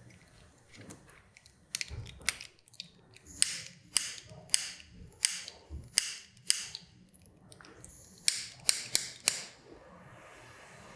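A series of about a dozen sharp clicks and snaps over several seconds, in two groups, from handling small wiring parts at a motorcycle's handlebar switch housing.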